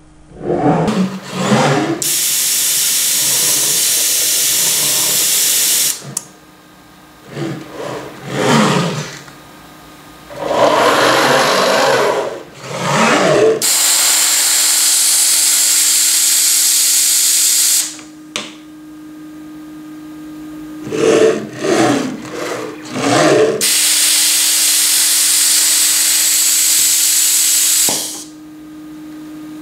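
Datron CNC machine running an automatic tool change. Its axis drives whine, rising and falling in pitch as the head moves. This alternates three times with a loud hiss of about four seconds, typical of the compressed-air blast that releases and cleans the spindle's tool holder. A steady hum runs beneath the second half.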